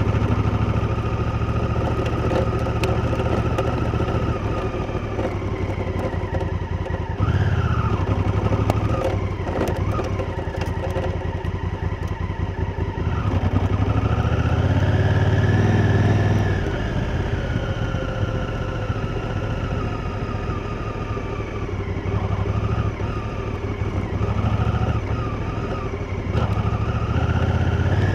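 Honda Africa Twin's parallel-twin engine running under a rider's throttle, its pitch rising and falling several times as it accelerates and eases off, with scattered clicks and clatter in the middle.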